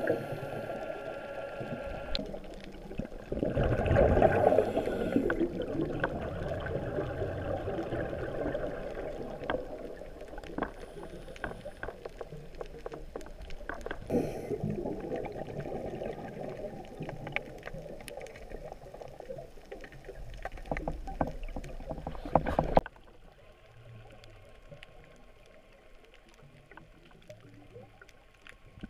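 Muffled underwater sound picked up by the camera on a coral reef: a rushing wash with scattered sharp clicks and a louder surge about four seconds in. It drops suddenly to a quieter hush at a cut near the end.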